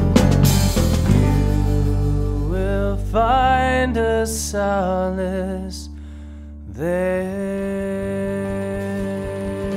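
A hymn sung over guitar accompaniment. The sung line pauses briefly about six seconds in, then goes on over held chords.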